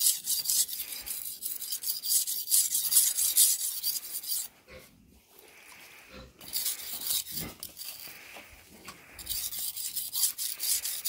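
A knife blade being sharpened by hand on a sharpening stone: quick, repeated scraping strokes, with a short pause about halfway through before the strokes resume.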